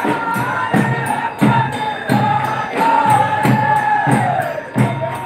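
Loud folk dance music: a drum beating steadily, about three strokes every two seconds, under a high, held, wavering melody line.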